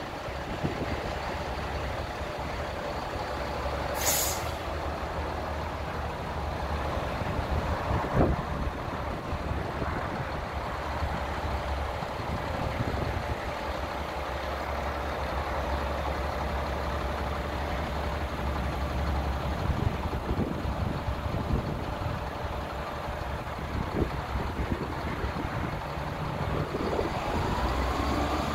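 2004 Sterling dump truck's diesel engine idling with a steady hum and whine, a short sharp air hiss about four seconds in and a clunk about eight seconds in. Near the end the engine revs up as the hydraulic hoist starts lifting the loaded dump bed.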